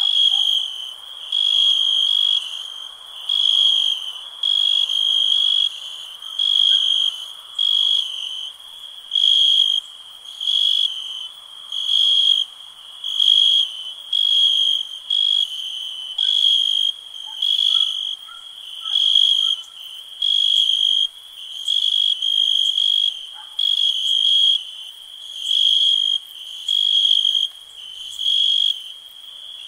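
A cricket chirping in an even rhythm, one short trilled chirp about every second and a quarter, over a faint background of other night insects, with a few short faint calls in the second half.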